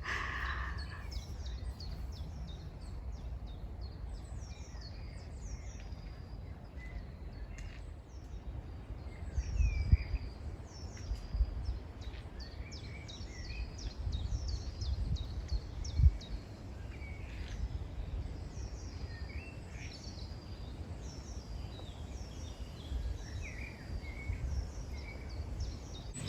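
Several small songbirds chirping and singing in short, repeated phrases, over a steady low rumble that bumps louder about ten and sixteen seconds in.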